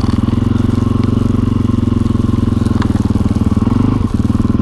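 Single-cylinder four-stroke dirt bike engine (a thumper) running steadily under load as the bike rides through snow, with a quick pulsing beat. The engine note dips briefly about four seconds in.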